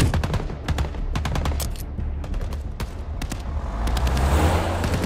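Film-soundtrack bursts of automatic gunfire: many sharp shots at uneven spacing over a steady low rumble, with a swell of rushing noise about four seconds in.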